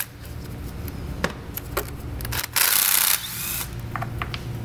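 Power ratchet with a T30 Torx bit on an extension spinning out a timing-cover screw in one burst about two and a half seconds in, lasting about half a second, with light clicks and taps of tools around it.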